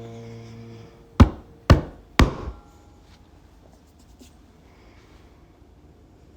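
The tail of a held sung note fades out, then three sharp knocks come about half a second apart, followed by a low background with a few faint ticks.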